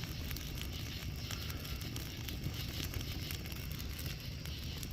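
Birch-wood campfire crackling, with many small irregular pops over a steady low rumble.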